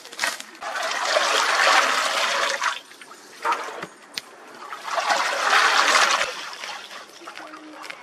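A wooden stick stirring a cauldron of boiling bay laurel berries and water, the liquid sloshing in two long surges, with a few knocks between them.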